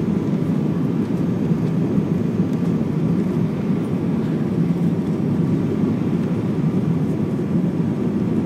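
Steady cabin noise inside an Airbus A319 airliner on final approach: an even, low rush of jet engines and airflow over the fuselage.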